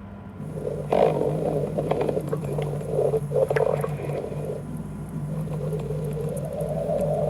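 Stomach growling: a low, gurgling rumble that starts about half a second in, jumps loudest about a second in, and runs on with uneven gurgles.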